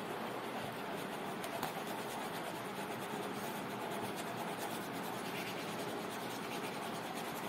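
Pen writing on paper, steady and continuous.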